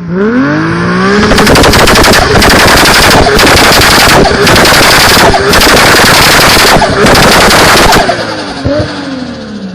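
A modified turbocharged car engine revs up, then is held against a rev limiter for about seven seconds, its exhaust backfiring in a rapid machine-gun-like string with a few short breaks. The revs fall away near the end.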